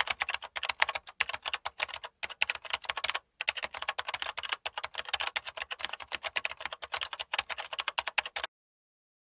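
Fast typing on a computer keyboard: a dense run of key clicks with brief pauses about two and three seconds in, stopping abruptly about a second before the end.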